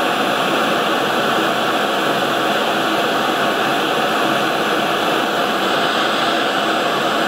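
Hand-held propane torch burning with a steady hiss, its flame held on a battery-cable lug to heat it until the solder melts and flows into the joint.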